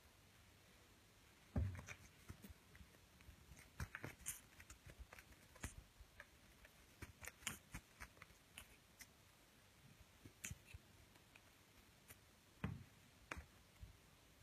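Persian kitten playing on a carpeted cat-tree platform: faint, scattered taps, thumps and scratchy rustles from its paws and claws. There is one louder thump about a second and a half in and another near the end.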